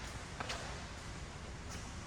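Badminton hall ambience: a steady background hum with two faint, sharp taps about half a second in.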